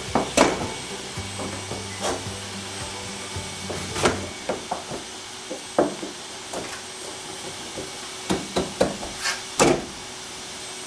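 Irregular sharp wooden knocks and taps as small wooden shims are pushed and knocked into place around a plexiglass panel in a window frame. Background music plays under the first few seconds and then stops.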